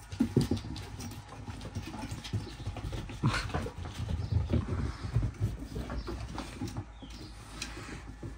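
Pit bull puppies play-fighting and scuffling, with many short low dog sounds and one sharp sound about three seconds in.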